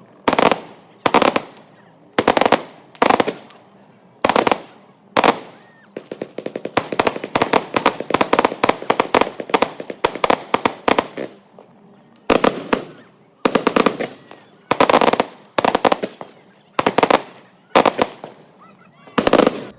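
Consumer fireworks going off: a string of sharp bangs, roughly one a second, each trailing off quickly. Midway there is a dense run of rapid crackling pops lasting about five seconds.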